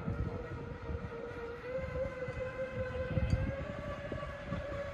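A 3D-printed RC raceboat's motor running at speed with a steady whine that rises slightly in pitch about two seconds in, over a low rumbling noise.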